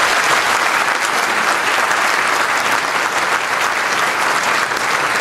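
A large audience applauding loudly and steadily.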